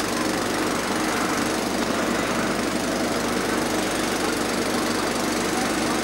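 A boat engine running steadily, with an even, rapid pulse and no change in speed.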